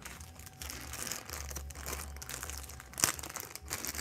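Plastic packaging crinkling and rustling as parts are handled, with a sharp click about three seconds in.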